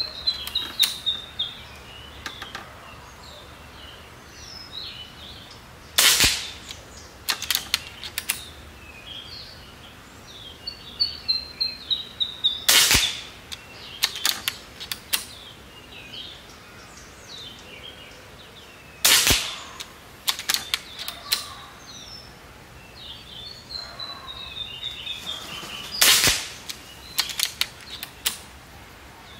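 Seneca Eagle Claw .25 calibre air rifle firing four shots, about six to seven seconds apart, each followed by a few lighter clicks. A bird sings falling whistled phrases between the shots.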